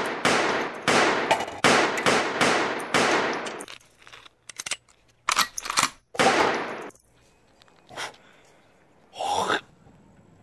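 Handgun shots fired in quick succession, about eight sharp cracks in the first three and a half seconds, then a pause and three more around six seconds. A couple of single, duller hits follow near the end.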